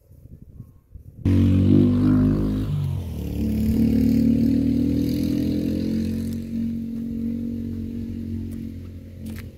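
An engine running, coming in abruptly about a second in; its pitch dips briefly, then holds steady as it slowly fades.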